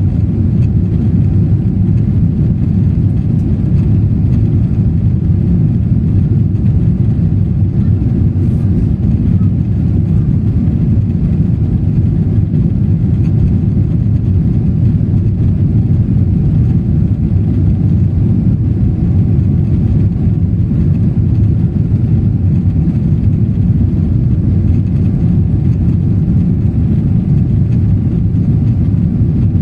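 Airplane engines and airflow during takeoff and climb: a loud, steady low rumble that holds unchanged throughout.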